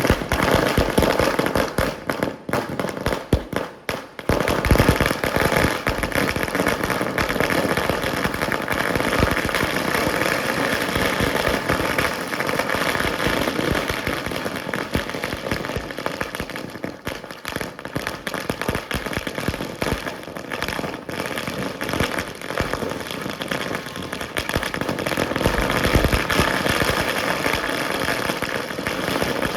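Fireworks going off in an unbroken, rapid barrage of crackling bursts and bangs that blend into a continuous rattle.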